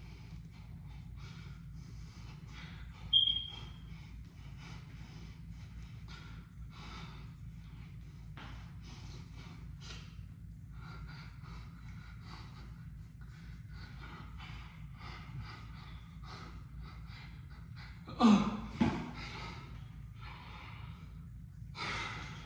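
A man breathing hard and heavily after an exhausting abs set, in soft repeated breaths about one a second, over a steady low hum. A brief high tone sounds about three seconds in, and a louder sound falling in pitch comes near the end.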